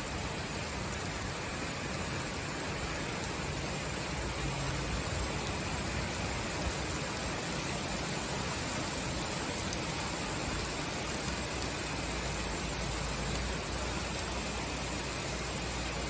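Heavy summer rain falling steadily: an even, unbroken hiss of a downpour.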